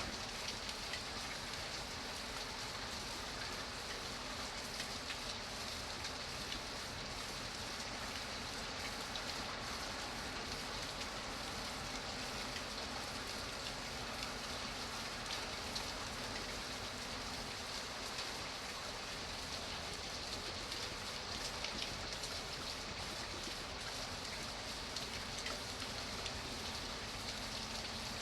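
Steady rainfall, a dense even patter of drops striking a surface, with many small individual drop ticks throughout.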